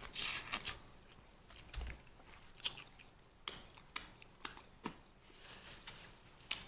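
Close-up eating sounds of a seafood boil: chewing, with scattered short, sharp clicks and snaps from the food and shells being handled.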